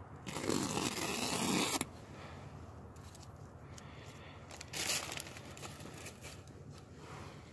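A scraping rustle of handling, lasting about a second and a half, then a shorter, softer rustle about five seconds in.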